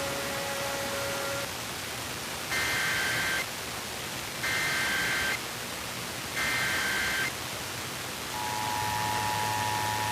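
Emergency Alert System test received over radio with steady hiss: a held tone ends, then three bursts of the SAME header data tones, each about a second long and a second apart. The steady two-tone EAS attention signal begins about 8 seconds in.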